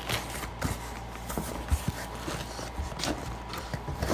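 Coilover parts and their packaging being handled: scattered light knocks and clicks at an uneven pace, over a faint steady hum.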